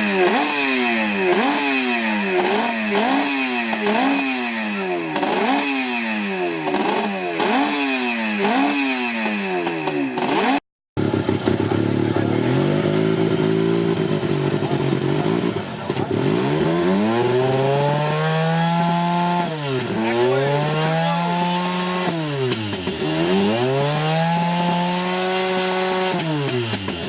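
Japanese four-stroke motorcycle engine, stationary, revved hard again and again. First come quick blips rising and falling about once a second. After a brief cut near the middle, it gives slower full sweeps up to about 11,000 rpm and back down, revved to the point of floating the valves.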